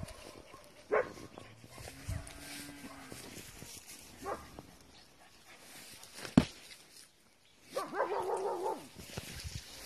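A dog barking a few times, with a longer call near the end. One sharp knock about six seconds in is the loudest sound.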